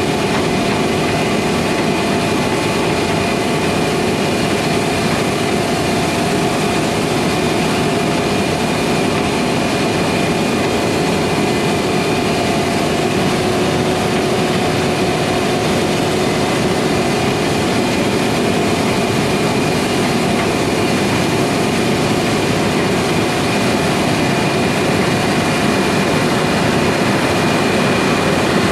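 Heavy harvest machinery running steadily: a constant engine and machine drone with a few steady whining tones and no change in pace.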